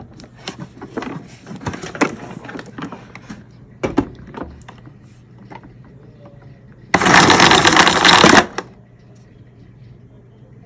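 Plastic parts of a Hoover canister vacuum cleaner clattering and clicking as they are handled. About seven seconds in, a loud, even rush of noise lasts about a second and a half and cuts off sharply.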